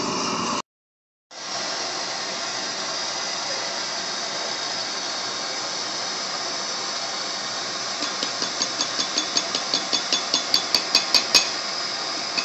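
Steady hiss of a propane blowtorch heating a small piece. About two thirds through, a hammer starts striking hot metal on a small anvil, about four light, ringing blows a second that grow louder before stopping.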